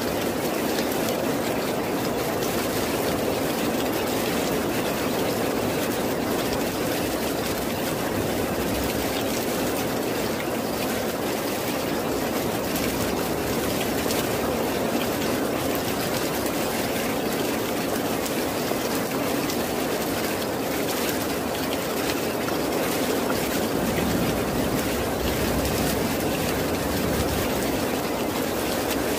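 Steady rain, an even wash of noise with no breaks.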